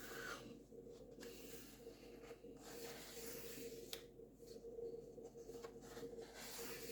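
Faint rustling of a paperback colouring book's paper pages being turned and handled, with a couple of soft clicks, over a faint steady hum.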